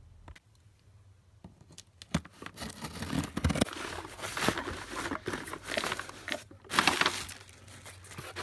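Paper and plastic packaging rustling and crinkling as a cardboard shipping box is opened and its contents handled, with scattered small knocks. It starts about two seconds in and is loudest near the end.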